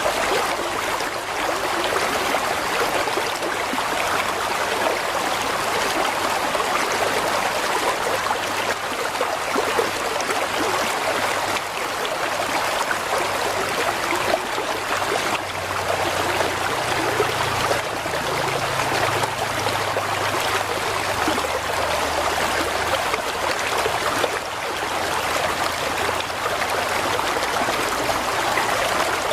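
Mountain stream flowing steadily over rocks, a continuous rushing and trickling of water.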